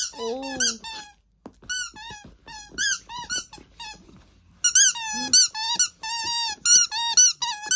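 A dog chewing a squeaky rubber toy ball, squeezing out many short, high squeaks in uneven bursts, with a quick rapid run of squeaks from about halfway through.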